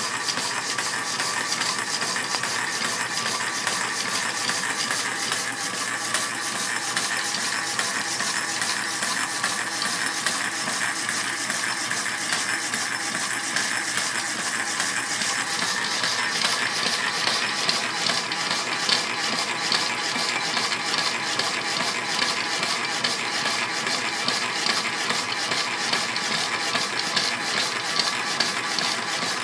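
Restored Keller Jefferson model 601 power hacksaw running, its blade sawing through 1 1/8-inch aluminum bar: a steady, even mechanical sawing noise.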